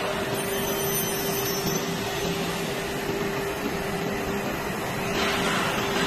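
SUDIAO CNC wood-door sizing machine running: a steady motor drone with a constant mid-pitched whine over a hissing hum. It grows brighter and hissier about five seconds in as the gantry head moves over the door panel.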